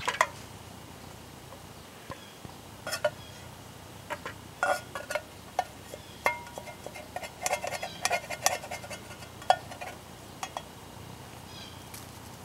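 A utensil scraping and tapping against the inside of a metal canteen cup and a metal mess-kit plate as scrambled eggs are scraped out: irregular clicks and scrapes, a few with a short metallic ring.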